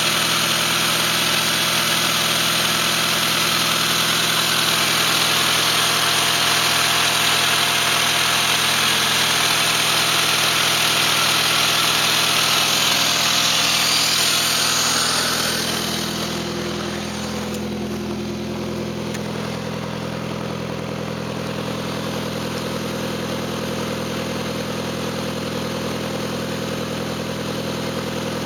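1993 Saturn SW2's 1.9-litre DOHC four-cylinder idling steadily with no misfire, shortly after a start. A loud hiss over the engine fades out about halfway through, leaving a quieter, even idle.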